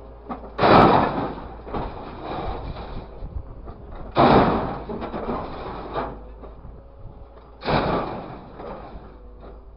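Orange-peel grab of a grapple truck dropping scrap wire and metal into the truck's steel bed: three loud crashes about three and a half seconds apart, each fading out over about a second, with a faint steady hum underneath.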